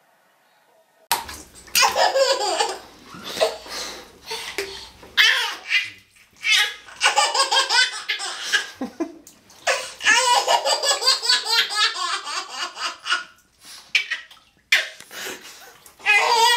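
A baby laughing hard in long fits of giggles and belly laughs, starting about a second in after near silence and coming in repeated bursts with short pauses.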